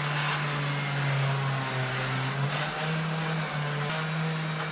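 Electric orbital sander running against an aluminium part with 240-grit paper, a steady motor hum over the hiss of the abrasive; the hum steps a little higher in pitch about halfway through.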